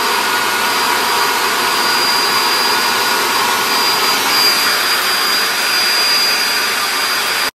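Andis hand-held hair dryer blowing steadily, a loud even rush of air with a thin high whine from the motor; it cuts off suddenly at the end.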